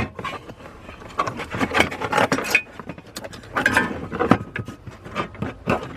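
Metal clicking, clinking and rubbing as a bolt is fitted by hand into a metal mounting bracket, in two busy runs of small knocks with a few short metallic rings.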